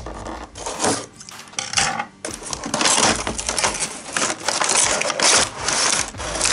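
A cardboard toy box being opened by hand and its plastic tray slid out: cardboard scraping and sliding with many small clicks and rattles of the plastic parts, quieter at first and louder and continuous from a little after two seconds in.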